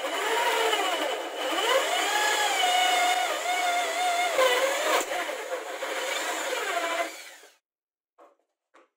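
Corded hand drill boring a wide, flat-bottomed bearing recess into a clamped wooden block; the motor's whine wavers in pitch as the bit bites and chips are thrown out. It stops about seven and a half seconds in, followed by two light knocks.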